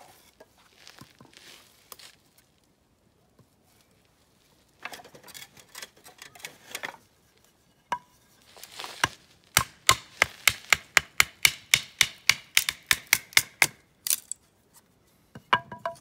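Kindling being split with a carbon-steel Mora knife: wood is rustled and scraped into place, then from about halfway there is a fast run of sharp wooden knocks, about four or five a second, lasting some four seconds.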